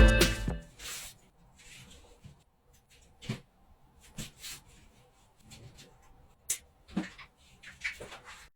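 Background music cutting off in the first half second, then faint, scattered clicks and taps of small objects being handled.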